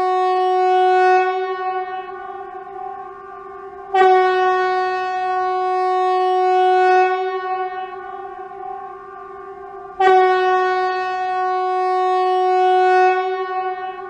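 Swedish civil-defence outdoor warning siren ('Hesa Fredrik') sounding a steady, unwavering horn-like tone. It swells sharply louder about 4 seconds and 10 seconds in and sinks back between.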